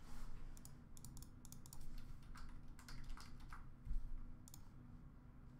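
Typing on a computer keyboard: a scattered run of quick key clicks, with one soft low thump about four seconds in, then the clicking stops.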